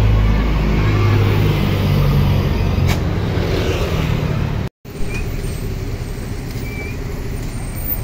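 Tour coach's diesel engine running as it passes close by, amid road traffic. A sharp short hiss comes just before three seconds in. The sound breaks off briefly a little past halfway, then quieter passing traffic follows as another coach goes by.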